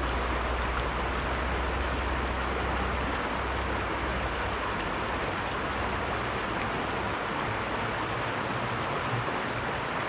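River water flowing steadily, an even rushing noise. About seven seconds in a small bird gives a short high call of a few quick notes.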